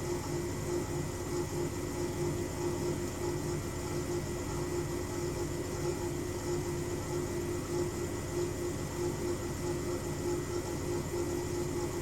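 Hoover Zerowatt washing machine running on its spin cycle: a steady, even drone with a constant tone over it. The noise sounds like its drum bearings, which the owner takes for a sign of age-worn bearings.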